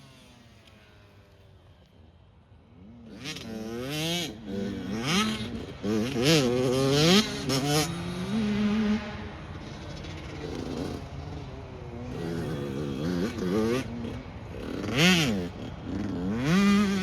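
Off-road race vehicle engine revving hard, its pitch rising and falling over and over, with sharp knocks and rattles mixed in. It starts after a quiet couple of seconds and surges loudest near the middle and the end.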